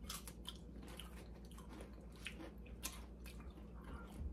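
A person chewing crunchy corn tortilla chips, with soft, irregular crunches.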